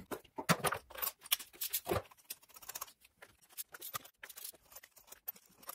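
Irregular light clicks and taps of small tools and parts being handled, several a second.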